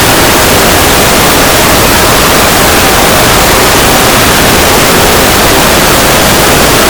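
Very loud, steady static-like noise that fills every pitch at once and holds at one level without a break.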